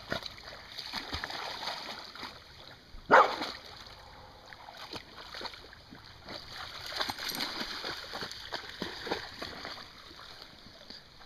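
Flat-coated retriever wading through shallow lake water, its legs splashing in a run of small irregular splashes. One short, loud sharp sound about three seconds in.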